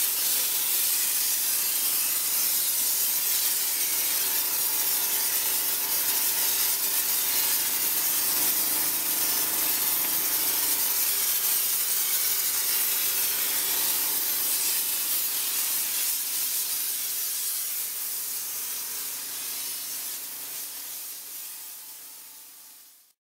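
Steam cleaner's wand nozzle blowing a jet of steam with a steady hiss, fading out near the end.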